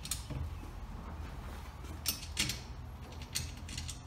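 Small metal clicks and scrapes of a bolt and nut being fitted by hand through a wheelbarrow's steel leg and cross brace, with a few sharp clicks in the second half.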